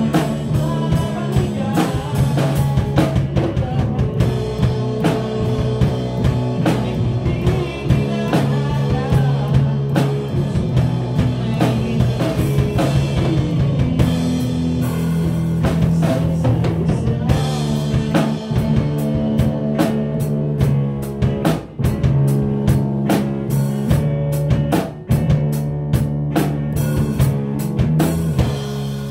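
A live rock band playing: a drum kit, electric bass and electric guitar, with a man singing into a microphone through much of it. Near the end the drums play a quick run of hits.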